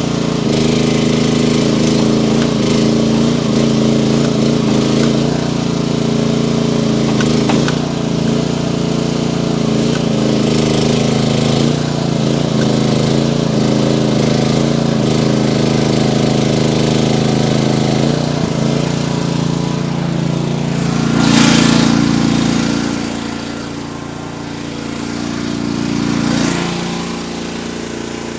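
Mini-excavator's small gasoline engine running steadily under hydraulic work, just after being restarted from a stall. About 21 seconds in there is a short louder surge, after which the engine note drops and goes quieter.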